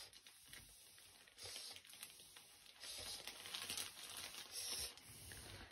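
Faint rustling and crinkling handling noises, in soft patches with no clear strokes.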